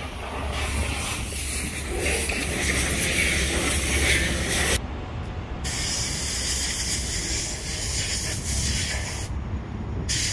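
Steady rushing outdoor noise, a hiss over a low rumble, of the kind wind and surf make at a seafront. Its character changes abruptly at a few cuts, with the hiss dropping out briefly about halfway through and again near the end.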